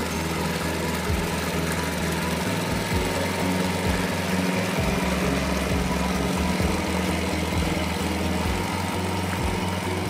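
Small engine of a two-wheel walking tractor running steadily under load as it pulls a harrow through a flooded rice paddy.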